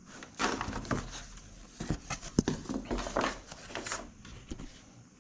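Irregular handling noises: rustling and scraping with a few sharp knocks, from work on a self-adhesive kayak deck mat.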